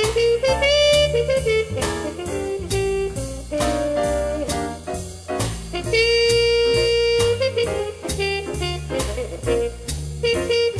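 Swing jazz instrumental break: a brass or reed horn plays a melodic solo line over a rhythm section with a moving bass line and steady beat.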